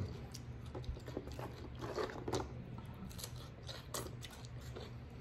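King crab legs being cut open with kitchen scissors and picked apart, and the meat chewed: scattered soft crunches, snips and clicks of shell.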